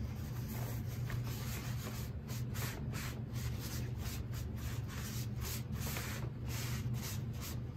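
Paper towel dabbing and rubbing over wet watercolour paper, blotting up the paint wash: a run of irregular soft brushing strokes starting about two seconds in, over a steady low hum.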